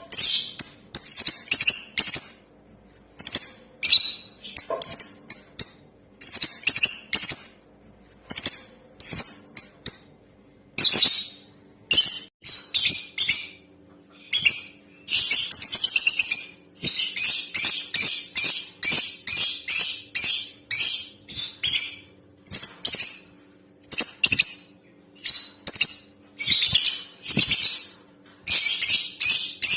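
Female lovebird calling in rapid, high-pitched chirps, coming in short bursts separated by brief pauses, with a longer unbroken stretch of chatter around the middle.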